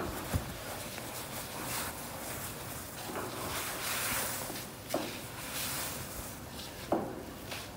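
Paint roller spreading glue over a corrugated metal roofing sheet: a soft swishing that comes and goes with the strokes, broken by a few short knocks, the loudest near the end.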